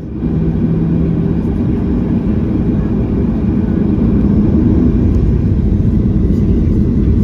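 Boeing 737-800 cabin noise: the jet's engines and a deep, steady rumble heard from inside the cabin, growing a little louder about four seconds in.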